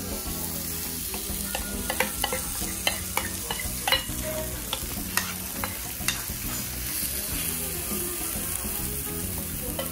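Okonomiyaki batter sizzling on a hot teppan griddle as it is spooned out of a metal bowl. A steady hiss runs under repeated sharp clinks of the metal spoon against the bowl.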